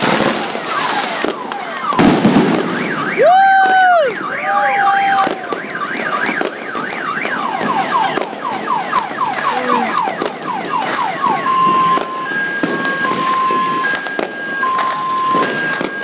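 Car alarm going off and cycling through its tones: a fast warble, then a run of falling sweeps, then high and low beeps alternating from about two-thirds of the way in. Firework crackle and pops sound throughout.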